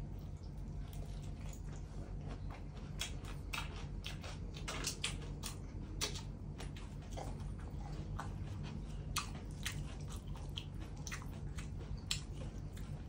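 Close-up chewing of a mouthful of Thai spicy fresh-shrimp salad (laab kung), with irregular wet mouth clicks and smacks.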